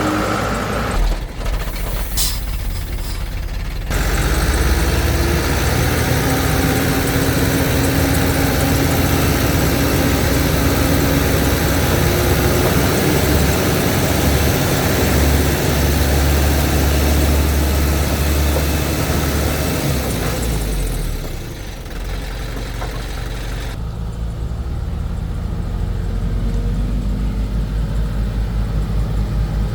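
Heavy diesel construction machinery running, working harder and louder through the middle, then easing after about twenty seconds into a steady idle with an even low throb.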